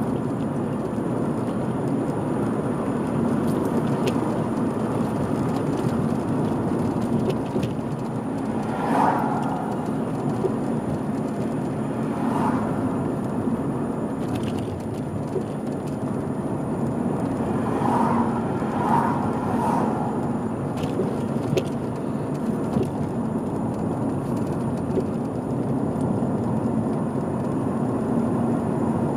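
A car driving along a road, with steady engine and tyre noise and a few brief higher-pitched sounds about a third and two-thirds of the way through.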